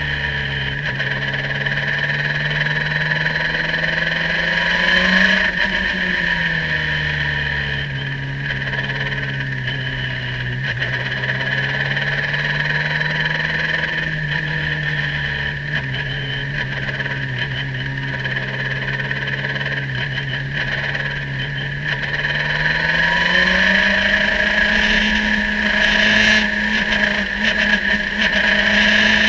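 Radical race car's engine heard onboard, running at moderate, fairly steady revs in second gear at low speed. The revs rise briefly about five seconds in and climb again over the last several seconds.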